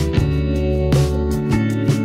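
Background music: a band with plucked and strummed guitar over a steady bass line.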